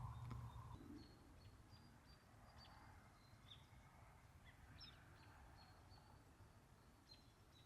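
Near silence outdoors, with faint, short, high chirps from small birds scattered throughout. A low rumble fades out within the first second.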